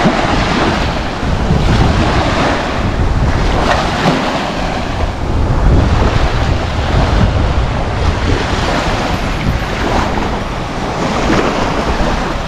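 Small waves washing and lapping onto a sandy shore, with wind buffeting the microphone. The wash swells and eases every second or two.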